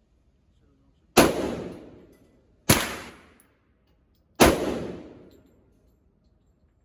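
Three single gunshots from a firearm fired at a target, about a second and a half apart, each with a long echoing tail.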